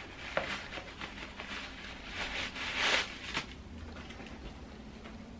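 Rustling and a light knock from sneakers being taken off and put on, with the rustle swelling and loudest about three seconds in.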